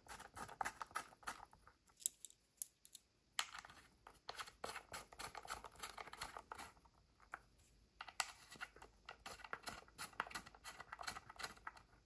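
Faint handling noises: small irregular clicks, taps and scrapes of brass threaded mounting posts being fitted into a door lock's metal handle plate.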